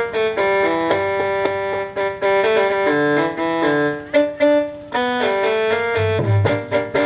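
Instrumental music: a keyboard melody of held, stepping notes, with low drum hits coming in about a second before the end.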